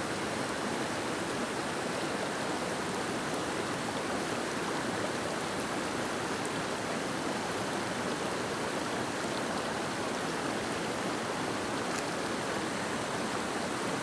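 A rushing river flowing over rocks: a steady, even sound of water.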